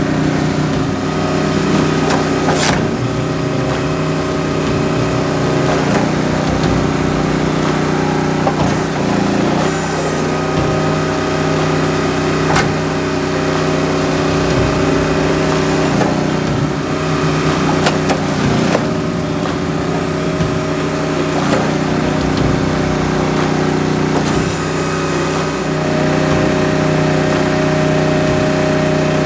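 Wolfe Ridge Pro 22C log splitter's gas engine running steadily under hydraulic load, with now and then a sharp crack or knock as the wedge splits a round of firewood.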